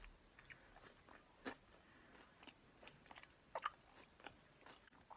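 Faint close-up chewing of chili with corn chips: soft, irregular crunches and mouth clicks, the loudest about three and a half seconds in.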